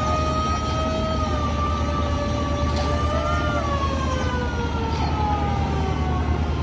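Camera drone's propellers whining with sustained tones that drift slowly in pitch, briefly splitting into two close pitches and sliding lower later on, over a steady low hum.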